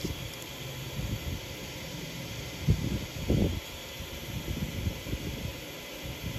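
Steady background hiss with a few low, dull bumps near the middle.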